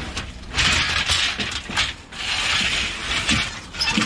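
Aluminium scrap (extrusions, sheet and cast pieces) clattering as it is tipped onto a scrap pile, in two long rattling spells with a brief pause about two seconds in.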